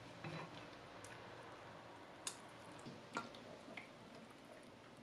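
A few faint, scattered clicks and drips as freshly boiled tofu drains in a stainless steel colander.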